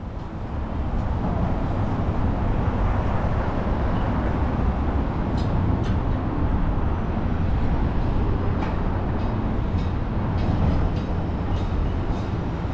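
Steady low rumble and hiss of city street traffic, with scattered faint clicks.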